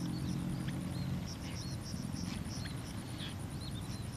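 Open-field wetland ambience: scattered short bird chirps over a fast, steady high insect trill, with a low rumble underneath.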